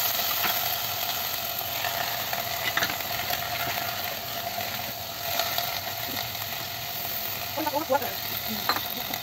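Diced vegetables stirred in a cooking pot over a steady sizzle, with a spoon scraping and clinking against the pot a few times. Near the end liquid is poured in from a bowl, with a short gurgle.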